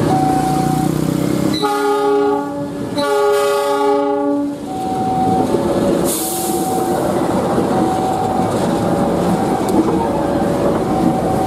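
KAI CC206 diesel-electric locomotive sounding two long horn blasts, each about a second and a half, then its diesel engine running as it passes close by at shunting speed with a coach in tow. There is a short hiss about six seconds in.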